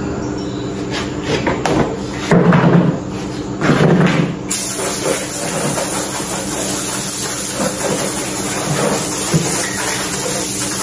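Two heavy knocks as plastic chairs are handled, then water from a garden hose starts spraying with a steady hiss about four and a half seconds in.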